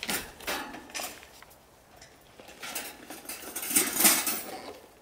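Fabric rustling and light metallic clinks and scrapes as a Paseco Camp 25S kerosene heater, its wire guard rattling, is lifted out of its padded carry bag. The loudest clatter comes about four seconds in.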